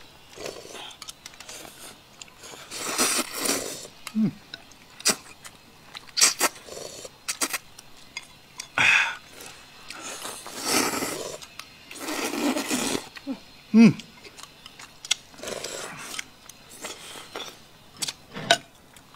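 People slurping glass noodles from bowls: several loud slurps lasting up to a second, with scattered sharp clicks and a couple of brief low hums between them.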